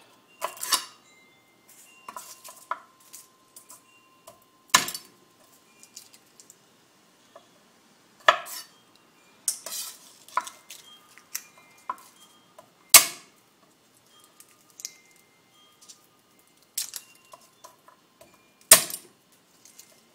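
Kitchen dishes and utensils being handled: a string of light taps and clinks with about six loud, sharp knocks a few seconds apart, several of them leaving a short metallic ring.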